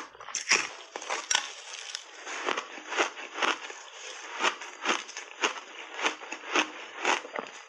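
Crunchy block ice coated in purple, being bitten and chewed close to the microphone: a steady run of sharp crunches, about two a second.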